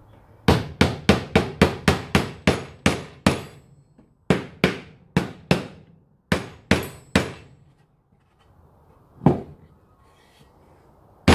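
Claw hammer knocking a loose staple back down into an old wooden box: a quick run of about a dozen sharp blows, then shorter runs after a brief pause, and two single blows near the end.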